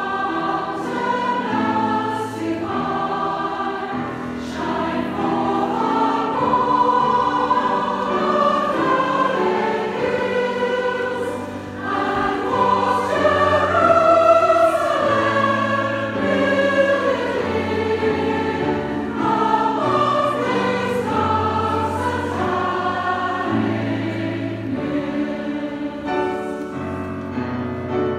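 A large choir singing slow, held notes in several parts, with a short breath-pause about halfway through.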